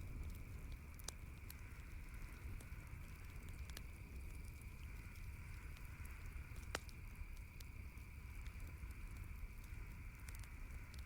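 Campfire crackling: scattered sharp pops and snaps, one louder pop about seven seconds in, over a steady low rumble and a steady higher-pitched background hum.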